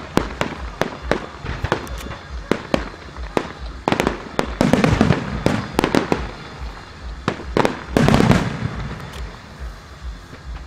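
Aerial fireworks going off: an irregular run of sharp bangs with crackling, thickest in two dense volleys about four to five seconds in and again around eight seconds in.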